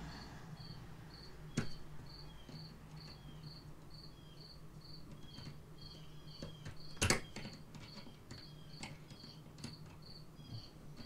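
High insect chirping, steady and even at about two chirps a second, over a faint low hum. A few sharp metal clicks come from pliers working on a chainsaw's carburetor linkage, the loudest about seven seconds in.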